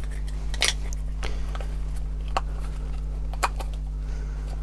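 Rubber RC car tyres being stretched onto plastic wheel rims by hand, giving a few scattered clicks as the parts are handled, over a steady low hum.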